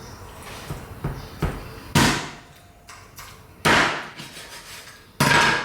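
A knife chopping raw chicken into pieces: a couple of light taps, then three hard whacks about a second and a half apart.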